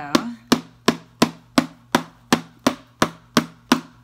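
A book tapping on the lid of a glazed pottery honey jar in a steady run of sharp knocks, about three a second, to break loose a lid that glaze has fused to the pot in the firing.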